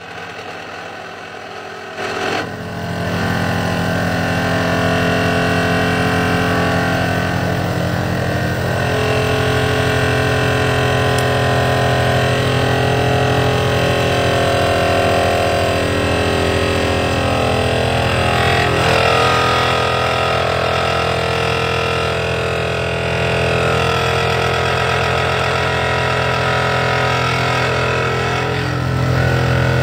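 Excavator-mounted vibratory pile hammer driving a steel sheet pile into the ground, with the carrier excavator's diesel engine running under load. The machinery is quieter at first, then grows much louder about two and a half seconds in and keeps a steady drone whose higher pitches waver.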